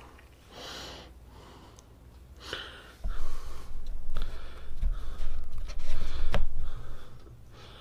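Faint breathing close to the microphone, then from about three seconds in a louder, uneven low rumble with small knocks: handling noise from the phone and the egg being moved about.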